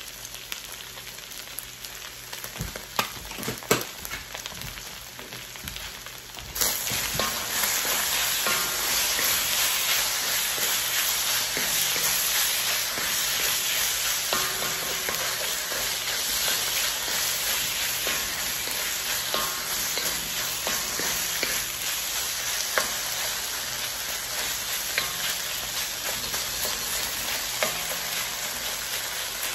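Sliced beef frying in a cast-iron wok while it is stirred with a wooden spoon. The sizzle is faint at first, with a few sharp taps. About six seconds in it suddenly turns louder and then holds steady, with small ticks and scrapes from the stirring.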